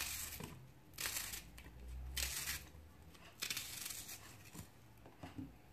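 A raw onion being broken apart by hand, its layers snapping and tearing in about four short crisp bursts as the pieces drop into a chopper bowl.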